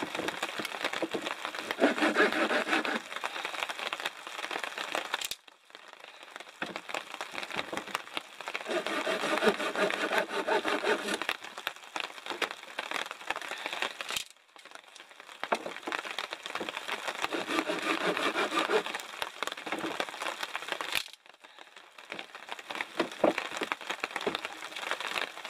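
Folding pruning saw cutting through a stick of firewood in quick back-and-forth rasping strokes, in three spells with short breaks between them.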